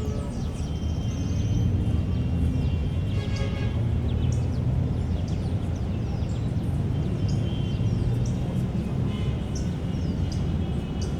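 Park ambience: many birds chirping and singing in short calls and trills over a steady low rumble.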